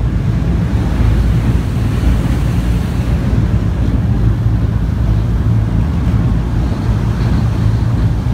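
Passenger ferry's engines running with a steady low drone, heard from the open deck. Water rushes in the boat's wake and wind blows across the microphone.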